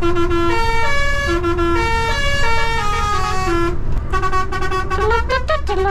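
A truck's musical air horn playing a tune of short held notes stepping up and down for about three and a half seconds, then, after a brief break, more wavering, sliding horn notes. The lorry's engine rumbles underneath.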